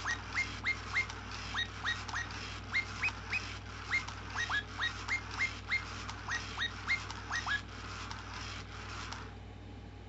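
Sega Toys Chirpy-Chi robot bird toy playing one of its electronic chirping songs through its small speaker: a run of short chirps that slide downward in pitch, two to three a second. The chirps stop about three-quarters of the way through, and a soft hiss runs on a little longer before stopping.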